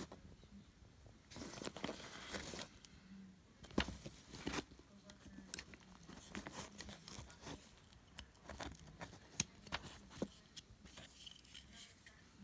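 Sharp metal clicks and clacks from a small stainless multi-tool hatchet as its folding blades are handled and snapped shut into the wooden handle, with a stretch of rustling handling noise near the start.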